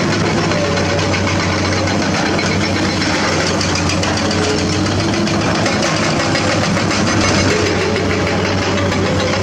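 Hydraulic excavator's diesel engine running steadily, with faint wavering tones above the low engine hum.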